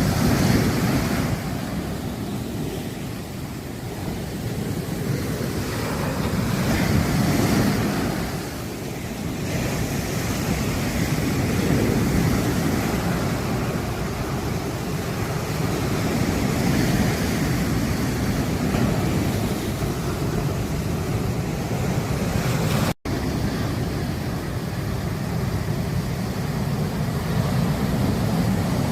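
Sea waves breaking and washing up on a beach, a continuous surf roar that swells with each incoming wave every few seconds. There is a brief gap in the sound about three-quarters of the way through.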